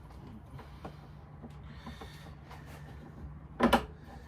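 Metal lawn-mower handle hardware being worked by hand: a few faint clicks and rubs, then one loud clunk about three and a half seconds in as the bolt's square-necked head drops into its square slot. A steady low hum runs underneath.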